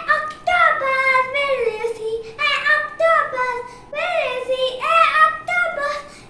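A child singing solo in a high voice, holding notes that slide up and down, in short phrases with brief breaks between them.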